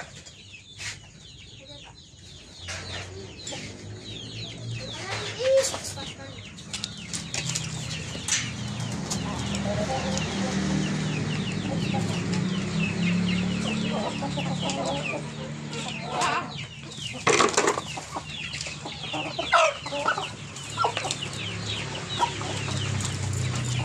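A flock of Siamese (ayam Siam) chickens clucking, with many short calls overlapping that grow busier a few seconds in. A few louder sharp sounds stand out later on.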